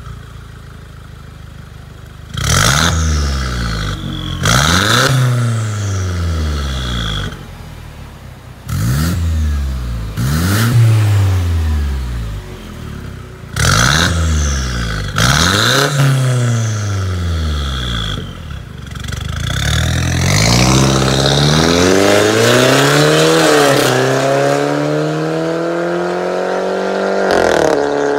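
Mercedes-Benz W204 C250's turbocharged four-cylinder engine through a straight-through aftermarket exhaust with valved rear mufflers: idling, then six short throttle blips, each rising and falling in pitch. In the second half the revs climb for longer and stay up, with a sudden change near the end.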